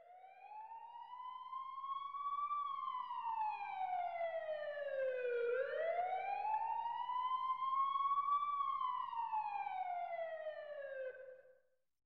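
Emergency vehicle siren in a slow wail, its pitch rising and falling twice, fading in at the start and fading out about eleven seconds in.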